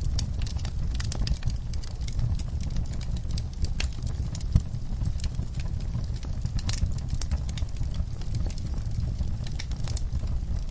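Wood fire burning in an outdoor fireplace, crackling with scattered sharp pops over a steady low rumble; one louder pop about four and a half seconds in.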